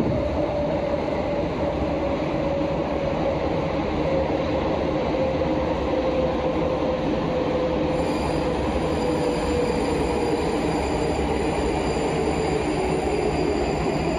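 Prague Metro Line A train running in the tunnel, its steady rumble carrying a motor whine that slowly falls in pitch as the train slows for the next station.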